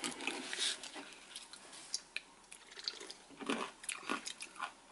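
A can of pear chu-hi fizzing faintly as it is opened and handled, with small clicks. Then a few soft gulps as it is drunk near the end.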